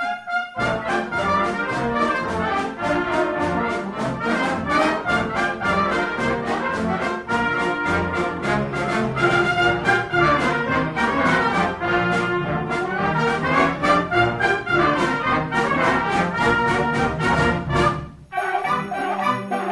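Concert band playing live, with trombones and trumpets leading. The music breaks off for a moment near the end and then starts again.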